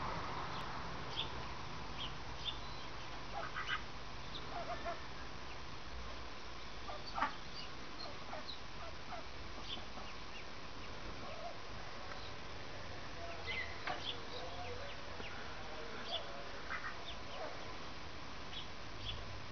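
Indian Runner ducks and ducklings calling: many short, high peeps scattered throughout, with a few brief duck quacks mixed in.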